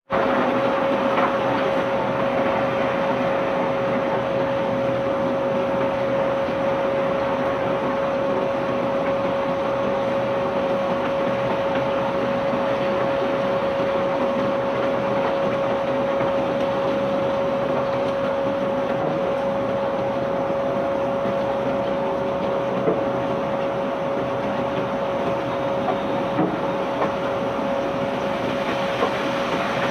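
Heavy unloading machinery on a cargo barge running steadily: a constant rumble with a steady whine over it, and a few faint knocks in the last few seconds.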